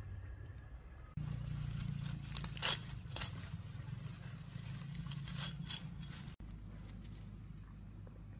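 Knife blade cutting through bunches of leafy water-vegetable stems: a string of crisp snips and tearing sounds that starts about a second in, the sharpest about two and a half seconds in.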